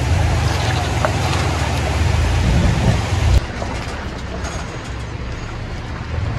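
Off-road truck driving along a rough dirt trail: a low rumble of engine and tyres with some wind noise. The sound drops and changes abruptly a little over three seconds in.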